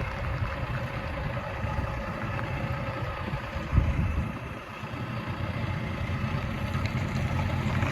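Semi truck's diesel engine idling steadily as the tractor-trailer creeps back, with a brief low thump a little under four seconds in.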